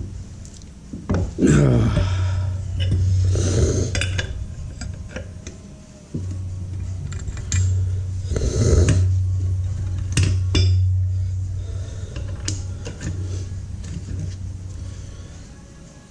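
Light metallic clinking and clicks of steel parts and hand tools being handled, under background music with a steady bass that drops out briefly around six seconds in.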